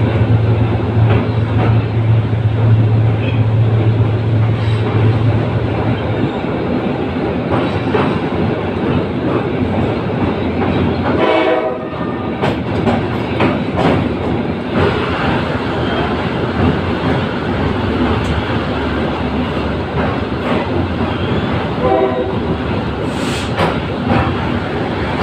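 A passenger train running over a steel truss bridge, recorded from an open carriage door: a loud, steady rumble of wheels on rails with frequent short clanks. A deep hum drops out about six seconds in. A brief pitched tone sounds about eleven seconds in, and a fainter one comes near the end.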